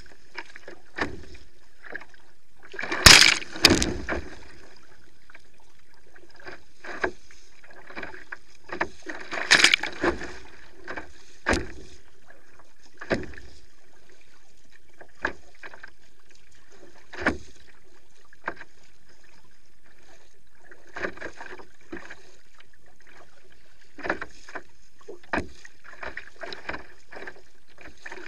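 Kayak being paddled through choppy sea: irregular knocks and splashes of the paddle and of waves slapping the hull over a steady background hiss, with louder bursts of splashing about three and ten seconds in.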